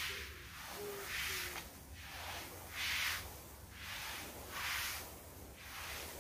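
Water sprinkler spraying over soil-filled seedling trays, its hiss swelling and fading about every two seconds as the spray sweeps past. A faint low steady note repeats in short pieces during the first second and a half.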